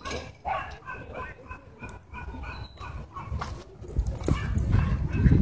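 Dogs playing rough, giving many short barks and yips in a row, with a low rumbling noise growing louder near the end.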